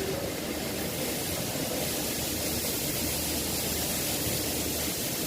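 Steady hiss with a low hum beneath it, unchanging throughout.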